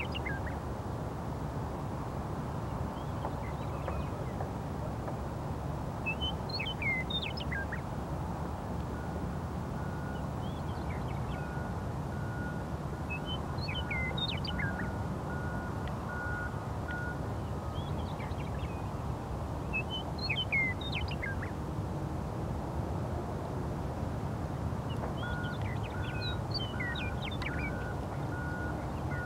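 Western meadowlarks singing, short phrases of descending whistles about every six seconds. Underneath runs a steady low rumble of construction machinery, and a reversing beeper pulses evenly through the middle and again near the end.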